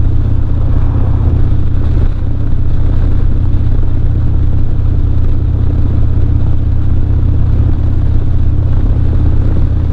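Harley-Davidson Dyna's V-twin engine running steadily as the motorcycle cruises at an even speed, with a constant rush of noise over it.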